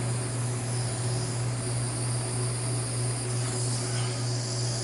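Handheld butane micro torch flame hissing steadily while it heats a solder-filled copper wire lug, over a steady low hum.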